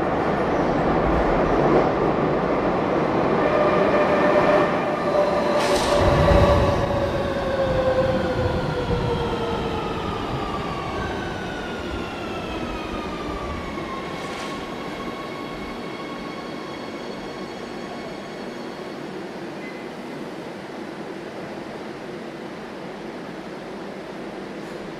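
Metro train running and slowing, several whining tones gliding down in pitch together, with a sharp knock about six seconds in. The noise then eases into a quieter, steady rumble.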